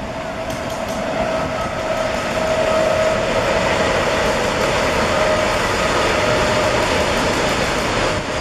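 Freight train of BOBR hopper wagons rumbling across a concrete bridge, growing louder over the first three seconds and then holding steady, with a thin steady whine over it in the first half.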